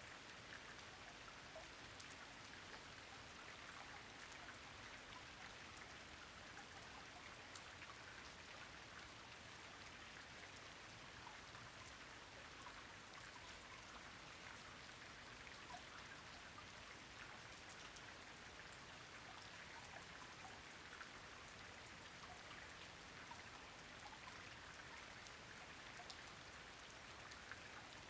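Rain falling: a soft, steady hiss of rain with many scattered drop ticks on a surface.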